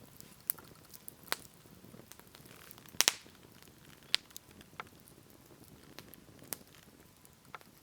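Small wood fire crackling, with scattered irregular sharp pops, the loudest about three seconds in.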